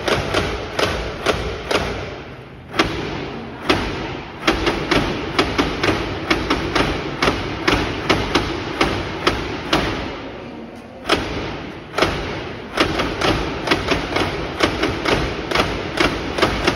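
Wooden lion-dance heads on a mechanical clock snapping their jaws: a steady run of sharp wooden clacks, about three a second, with two short breaks.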